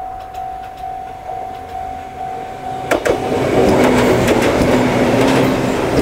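Electronic level-crossing warning bell (JR Central-type tone) ringing about twice a second. About three seconds in, a Joshin Electric Railway 200 series two-car electric train (DeHa 205 + DeHa 204) arrives and passes over the crossing. Its loud running noise and wheel clacks drown out the bell.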